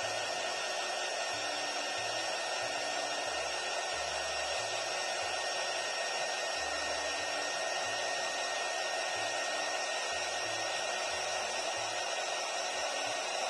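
Hand-held hair dryer blowing steadily with a faint high whine, heating the phone's glued bottom section to soften the adhesive.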